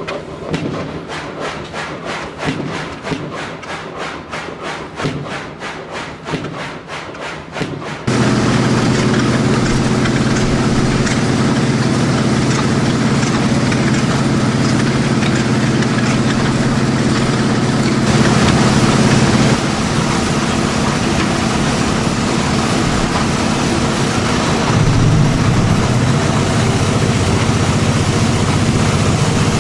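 12 hp Farrar & Trefts horizontal engine running on steam or compressed air, its exhaust puffing evenly about three times a second. About eight seconds in, a louder steady hum with a constant hiss takes over and runs on.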